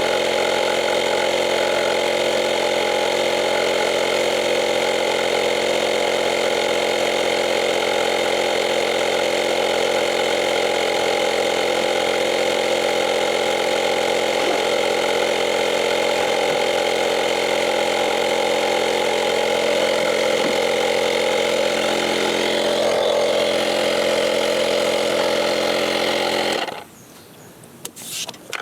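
Portable 12-volt tire inflator compressor running steadily while airing up a flat tire, then switched off abruptly near the end.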